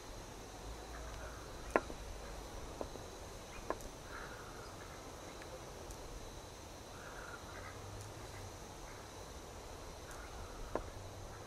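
Quiet outdoor ambience: a steady high insect drone, with soft murmuring clucks from foraging hens now and then and a few sharp clicks, the loudest about two seconds in.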